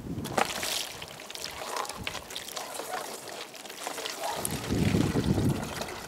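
Water poured from a galvanized metal bucket into the neck of a large plastic water bottle, the stream starting about four seconds in and becoming the loudest sound. Before that come scattered light clinks and knocks of the bucket and its chain being handled.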